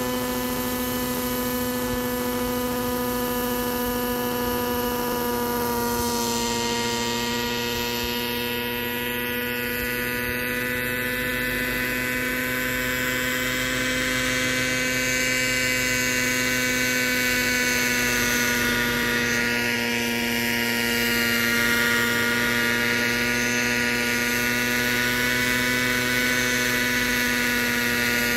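Kyosho Concept 30 SR-X radio-controlled helicopter's glow-fuel two-stroke engine running at a steady high pitch with the rotor whirring, as the model lifts off the ground and hovers.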